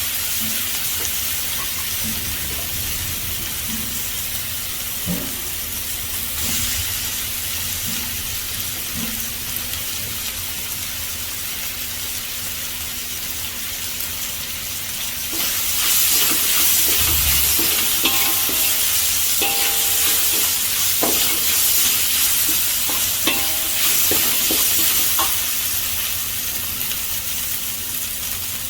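Okra, beans and potato sizzling as they fry in a pan, with a utensil stirring and scraping now and then. The sizzle gets louder about halfway through.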